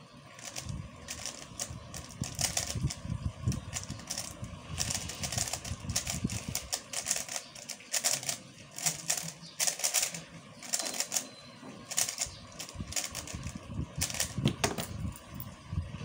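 Plastic 3x3 speedcube being turned fast during a timed solve: quick runs of clicking turns with short pauses between them.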